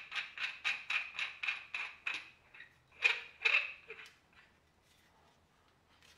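Inlet fitting being screwed by hand onto the threaded end of a high-pressure compressor's cylindrical air filter tube: a quick even run of light ticking clicks, about five a second, slowing to a few single ticks and stopping about four seconds in.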